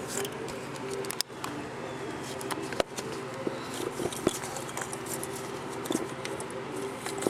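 Scattered sharp clicks and light knocks from hand tools and parts being handled in a car's engine bay, over a steady low background hum.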